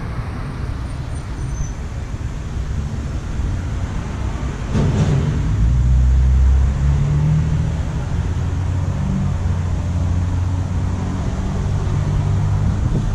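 A motor vehicle's engine running close by: a low rumble that swells about five seconds in and carries on.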